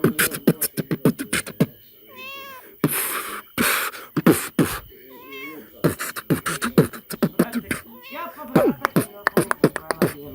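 Beatboxing: fast mouth-made kick and snare clicks with hissy hi-hat bursts, broken several times by short wavering meow-like calls.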